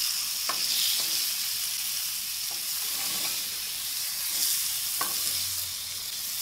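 Bone-in ribeye sizzling on a hot Himalayan salt plate: a steady, high frying hiss, with a few faint clicks.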